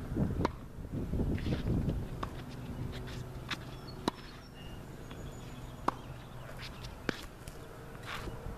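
Tennis balls struck by rackets and bouncing on a hard court during a baseline rally: sharp single pops every second or two, the clearest about four seconds in as the near player hits a forehand. A low rumble runs under the first two seconds.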